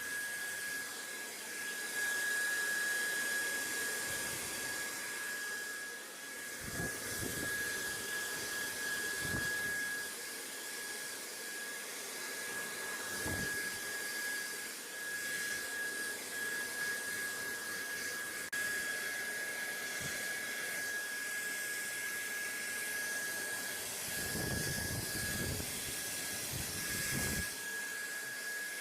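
Steady white-noise hiss with a thin, constant high whistle running through it. A few soft low rumbles come and go, most around the last few seconds.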